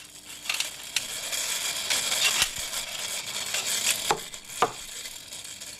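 Slot cars racing around a toy track: the steady buzzing rush of their small electric motors and wheels on the track, swelling and fading as they pass, with two short clicks a little past four seconds in.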